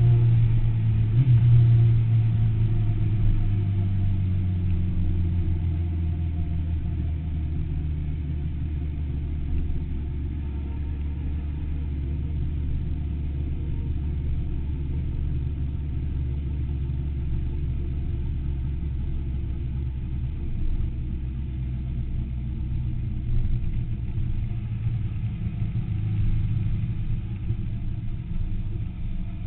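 Sport motorcycle's engine heard from a camera mounted on the bike, with a low rumble. Its note falls in pitch and loudness over the first few seconds as the bike slows, then runs steadily at low revs.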